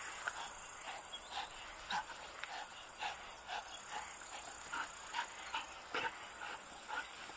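Belgian Malinois panting hard and fast, short breaths about twice a second, worked up from tugging and chasing.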